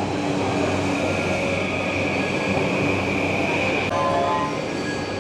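Passenger train running, heard from inside the carriage: a steady rumble and hum with a high whine that holds for about three seconds and stops about four seconds in.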